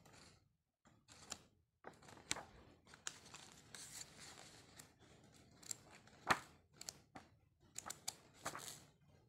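Glossy coated-paper pages of a large art album being turned one after another: soft swishes and rustles with several sharp paper snaps, the loudest about six seconds in.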